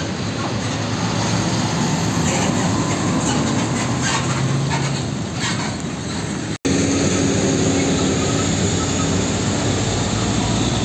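Heavy diesel container trucks passing close by. A UD Trucks tractor unit pulling a container trailer drives past with its diesel engine running and the trailer rattling over the road. After a sudden break, a steady engine drone of trucks in slow traffic follows.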